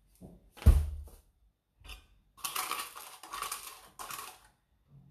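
A knock about two-thirds of a second in. Then, from about two and a half seconds in, a run of quick scraping rattles for about two seconds as granulated sugar is tipped and scraped out of a plastic yogurt pot with a spoon into a glass mixing bowl.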